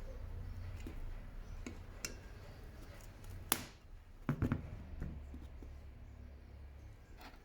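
A few handling clicks and knocks over a low steady hum: one sharp click about halfway through, then a quick cluster of knocks.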